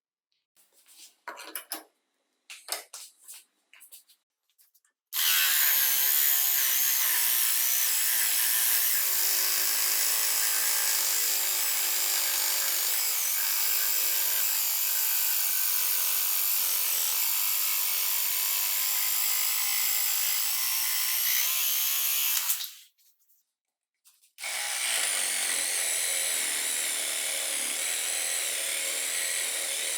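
Black & Decker CHS6000 cordless reciprocating hand saw running with its blade cutting through wood, a steady motor whine over the rasp of the blade for about seventeen seconds. It stops, then starts cutting again a second and a half later. A few light clicks of handling come before the first cut.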